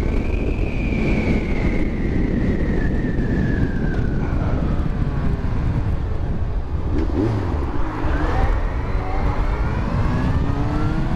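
Yamaha FZ1 motorcycle's inline-four engine under way, its pitch sinking slowly over the first few seconds, then climbing again from about eight seconds in as the bike accelerates. Wind rushes steadily over the microphone underneath.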